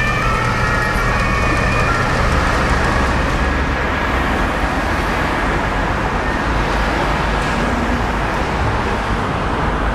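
Steady city street traffic noise, with the tail of an emergency vehicle's siren fading out in the first two seconds.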